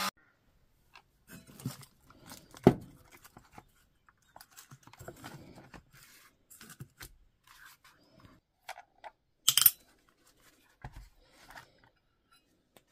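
Quiet clicks, knocks and scraping of hard plastic as a Parkside 20V battery's plastic case is handled and pulled apart, with a louder knock about three seconds in and a sharp snap near ten seconds.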